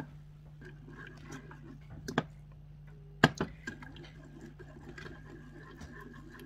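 Metal wire whisk stirring a thickening béchamel sauce in a saucepan: a soft, wet swishing, broken by a few sharp metallic clicks of the whisk striking the pan. The loudest click comes a little past three seconds in, after another about two seconds in.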